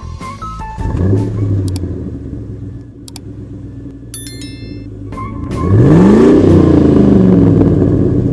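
Car engine revving: a short blip about a second in, then a bigger rev with pitch rising and falling back around six seconds in, idling between. A few sharp clicks and a ringing chime come in the quieter middle part.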